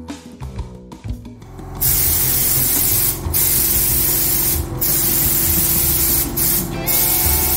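Gravity-feed air spray gun hissing as it sprays a coating, starting about two seconds in and running in long bursts broken by four brief pauses.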